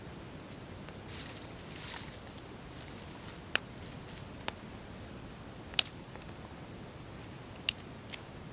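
A twig fire burning in a small twig stove: a low steady hiss with five sharp crackling pops spread over the second half, the loudest about six seconds in.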